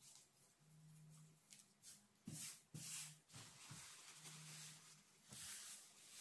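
Faint rustling of a paper towel being rubbed across a tabletop, in a few short swishes.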